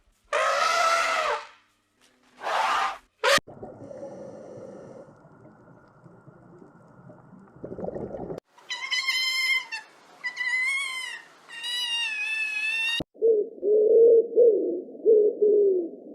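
A string of separate animal calls cut together: a cat meowing twice at the start, then about five seconds of steady noise, then high calls that rise and fall, and a low warbling call near the end.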